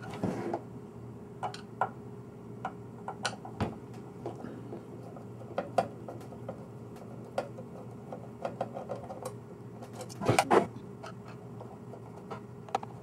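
Phillips screwdriver backing screws out of a sheet-metal equipment case: irregular small metallic clicks and ticks as the tip seats and the screws turn, with a louder scrape about ten seconds in.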